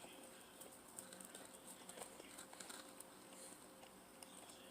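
Faint, close-miked chewing of pizza: soft, irregular mouth clicks and crunches over a faint steady hum.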